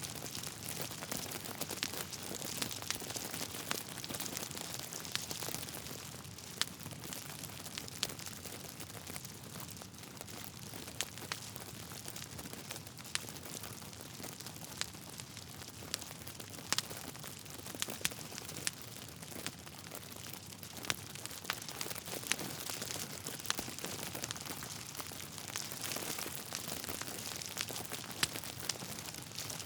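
Wood logs burning in a fireplace, crackling: a steady hiss with frequent sharp pops and snaps scattered throughout.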